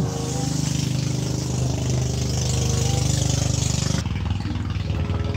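Motorcycle engine running steadily at idle, with a hiss over it that cuts off about four seconds in.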